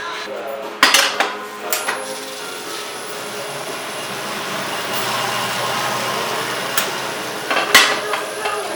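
Sharp knocks and clanks of hand tools working on metal parts. There are a few hits about a second in and two more near the end, over a steady hiss.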